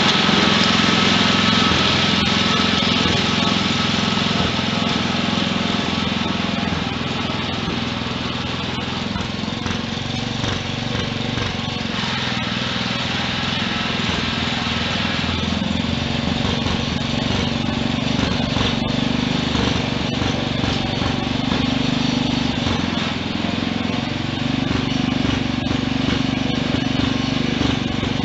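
1963 Wheel Horse 633 garden tractor's single-cylinder engine running steadily, its pitch and loudness wavering a little as it moves.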